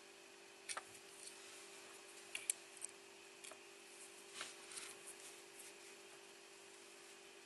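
Faint scattered clicks and light taps from handling a small circuit board and soldering iron during soldering, the sharpest a pair of clicks about two and a half seconds in, over a steady low hum.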